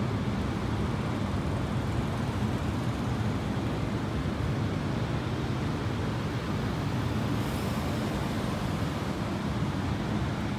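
Steady low rumble of street traffic noise.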